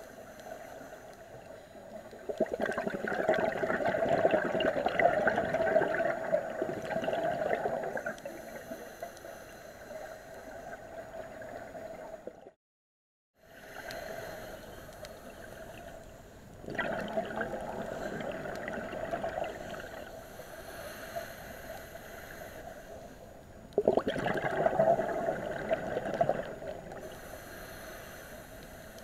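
Underwater recording of a scuba diver's exhaled air bubbling out of the regulator in gurgling bursts of a few seconds, three times, over a steady underwater hiss. The sound drops out for about a second near the middle.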